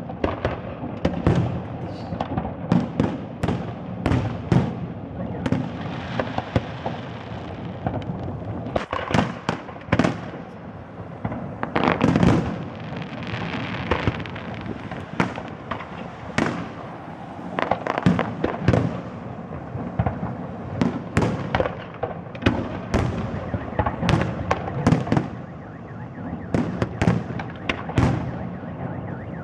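Fireworks display: a dense, unbroken barrage of sharp shell bangs with crackling between them.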